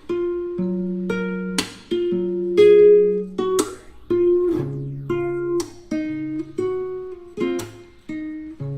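Background music: acoustic guitar playing plucked and strummed notes in a steady repeating pattern.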